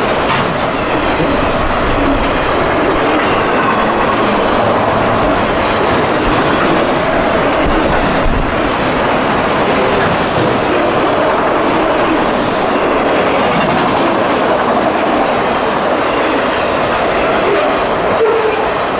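Freight cars of a passing freight train rolling by close at hand: a steady, loud rumble and clatter of steel wheels on the rails, with a faint brief high squeal near the end.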